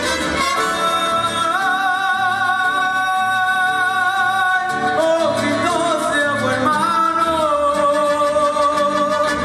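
Live Mexican orchestra accompanying a boy singer in a ranchera song, with two long held melody notes with vibrato, the second starting about seven seconds in.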